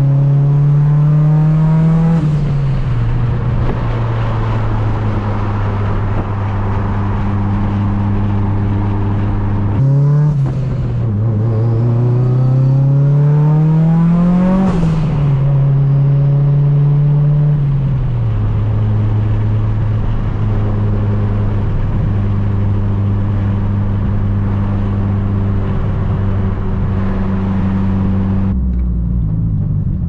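The turbocharged 4G63 four-cylinder of a built Mitsubishi Lancer Evolution VIII, heard from inside the cabin while driving. The engine note rises under acceleration and drops at gear changes, about two seconds in and again around fifteen seconds, with a brief hiss at the second shift. It eases off again near eighteen seconds, then holds a steady pitch while cruising.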